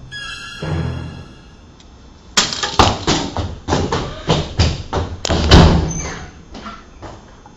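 A quick, irregular run of thuds on a hard floor, about three a second, starting a couple of seconds in and thinning out near the end: running footsteps. In the first second a faint high tinny melody fades out.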